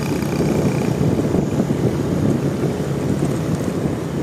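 Deep, loud, steady rumble of heavy bass from a parade sound system's stacks of subwoofers.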